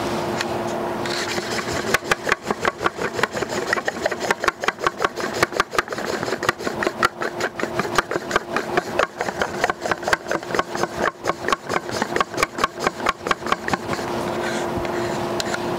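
Paint being stirred briskly with a thin stick in a small container: a rapid, rhythmic clicking and scraping at about four strokes a second, starting about two seconds in and stopping near the end. A steady low hum runs under it.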